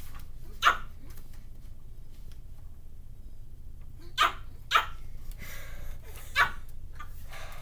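Four short, sharp barks spaced irregularly over several seconds, over a low steady hum.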